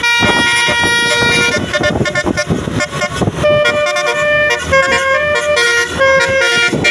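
Tour bus 'telolet' multi-tone horn playing a tune: several pitched tones sounding together, held briefly and then stepping to new notes.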